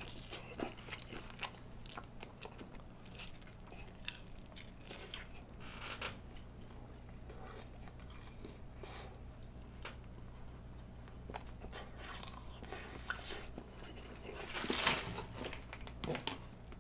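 Chewing and biting into sauce-glazed fried chicken close to a microphone: a run of short crackles through the chewing, with one louder burst about fifteen seconds in.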